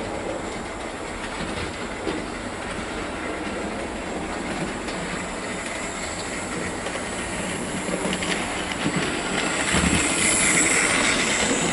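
Hornby OO gauge Duke of Gloucester model locomotive running light on the layout track: the whir of its motor and the rumble of its wheels on the rails, growing louder as it passes close about ten seconds in.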